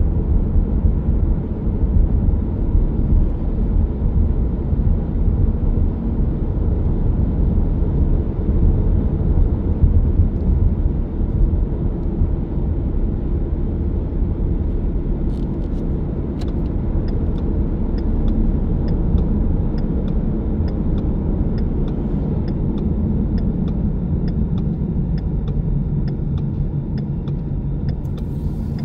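Car driving at road speed, heard from inside the cabin: a steady low rumble of tyres and engine. A little past halfway a faint regular ticking starts, about two ticks a second.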